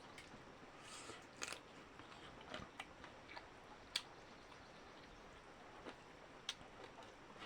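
A person chewing food close to the microphone, with scattered soft clicks and smacks of the mouth; the sharpest click is about four seconds in.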